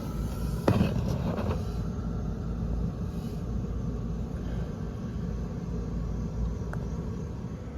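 Steady low rumble, with a single sharp knock about a second in.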